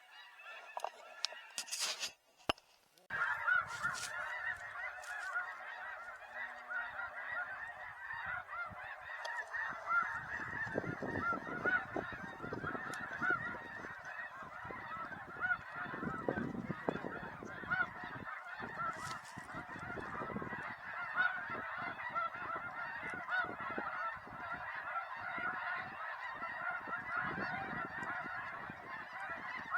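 Snow geese calling in a dense, continuous chorus of overlapping honks from many birds, starting abruptly about three seconds in.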